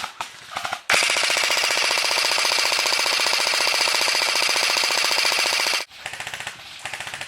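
A&K MK43 (M60) electric airsoft support gun firing full-auto. A couple of short bursts are followed, about a second in, by one long continuous burst of about five seconds, with the gearbox cycling rapidly under a steady motor whine, that cuts off abruptly.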